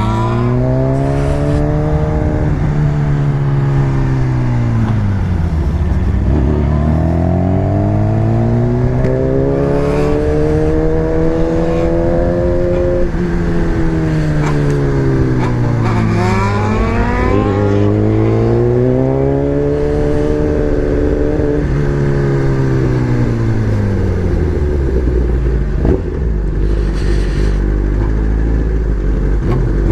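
Sport motorcycle engine heard on board while riding, its note falling and rising in long sweeps several times as the bike slows and accelerates, then holding low and steady for the last several seconds.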